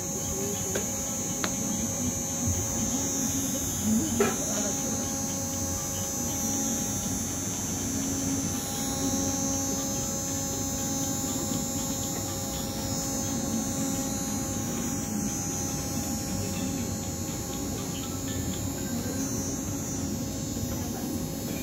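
Steady electrical mains hum with a high hiss, holding several fixed tones, and a faint knock about four seconds in.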